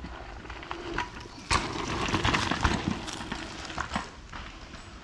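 Hardtail mountain bike rolling over a rough dirt trail: tyre crunch with irregular rattles and clicks from the bike. It gets busier and louder from about a second and a half in until about four seconds in.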